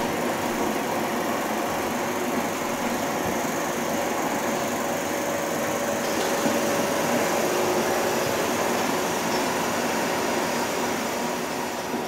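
16mm film projectors running, their mechanisms drawing film threaded through the room, making a steady mechanical running noise with faint steady tones in it.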